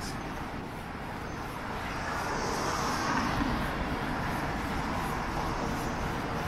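City street traffic heard from a moving bicycle, with a steady low wind rumble on the microphone; a vehicle goes by, loudest about two to three seconds in.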